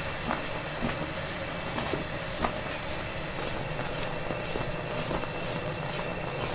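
Thick brown sugar syrup boiling in a large metal pan, stirred with a wooden paddle: a steady bubbling hiss over a low rumble, with scattered pops of bursting bubbles.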